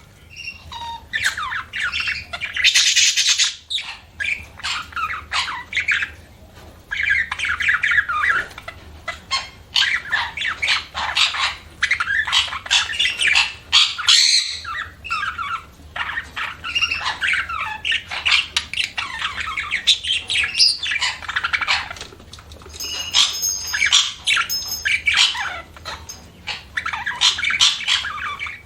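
Budgerigars chirping and squawking in quick, jumbled bursts, with a brief break about halfway through.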